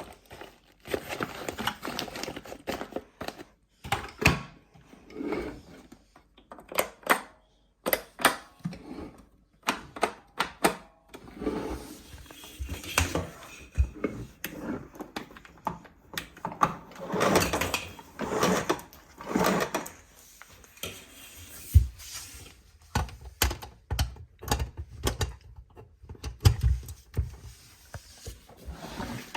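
Irregular clicks, knocks and rustling from a Sencor SVC45BL bagged vacuum cleaner being handled, with no motor running.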